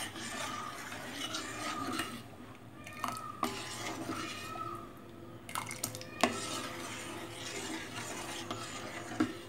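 Steel ladle stirring milk payasam in a stainless steel pot, scraping round the pot with a few sharp clinks against its side. The stirring is kept up without pause so the cornflour-thickened milk does not lump or set too thick.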